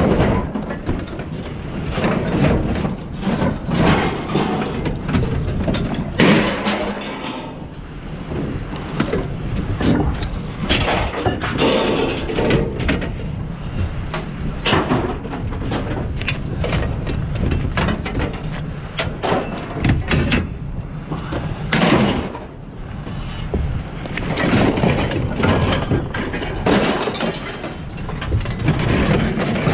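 Scrap metal being pulled off a pickup truck and thrown onto a scrap pile: a long run of sharp metal clanks and clatters, one after another, over a steady low rumble.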